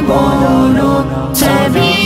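A young male voice singing an Urdu devotional kalam, holding long, gliding notes. There is a short break about a second in, then the next phrase begins.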